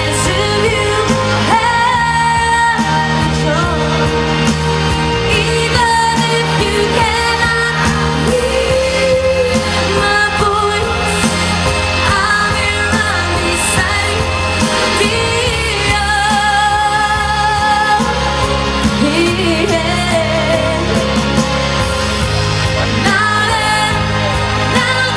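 A woman singing a pop song with long held notes over instrumental accompaniment.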